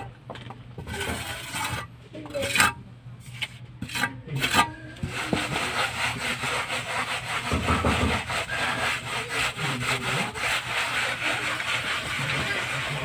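A mason's hand tool scraping against a rough cement wall: a few separate scrapes and knocks, then steady, rapid back-and-forth rasping from about five seconds in.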